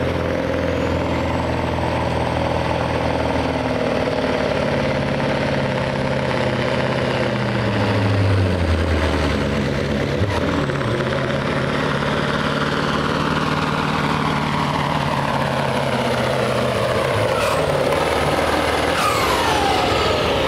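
Semi truck's diesel engine at full throttle, pulling a weight-transfer sled, with a high turbo whine over it. Near the end the engine backs off and the whine falls away as the truck comes to a stop.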